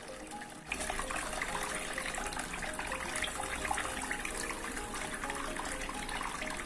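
Water splashing and trickling from a small homemade bottle waterfall fountain fed by a mini submersible pump, starting suddenly about a second in and running steadily with a low hum underneath. Background music plays throughout.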